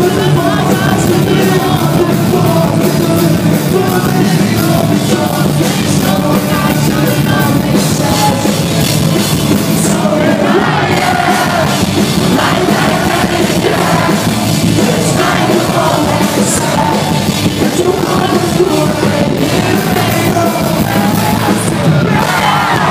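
A rock band playing live at full volume, with electric guitar, drums and a singer alternately singing and yelling into a microphone, heard from the crowd through a phone's microphone.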